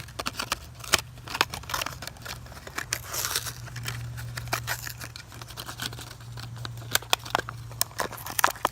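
Hot Wheels blister pack being torn open by hand: cardboard backing ripping and the plastic bubble crinkling, with many sharp irregular snaps and clicks.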